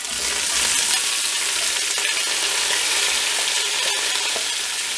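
Sliced red onions tipped into hot oil and ghee with fried whole spices, sizzling steadily as they hit the fat.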